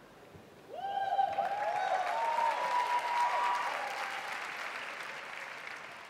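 Audience applause breaking out suddenly about a second in, with high cheering calls over the clapping for the first few seconds, then slowly dying away.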